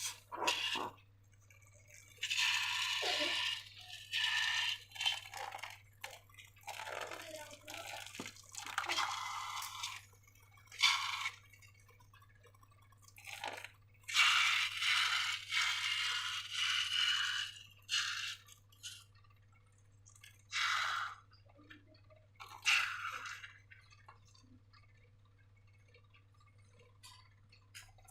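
Slime being squished and worked by hand, in irregular wet crackling bursts of a second or two with short pauses between them.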